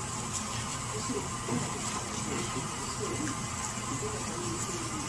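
Steady mechanical hum with a constant high whine, under faint voices talking in the background.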